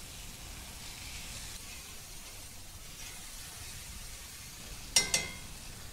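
Floured cube steaks sizzling steadily in hot oil in a cast iron skillet as they are turned over. About five seconds in there is one sharp clink that rings briefly.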